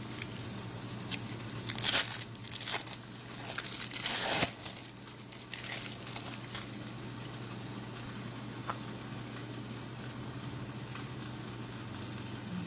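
Hands handling a crisp toasted msemen flatbread and a crumpled cheese wrapper: crinkling and tearing in short bursts, loudest about two seconds and four seconds in, over a steady low hum.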